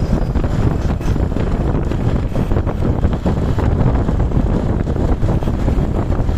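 Heavy wind buffeting on the microphone over a steady low road and engine rumble, as from a moving vehicle in traffic; no horn sounds.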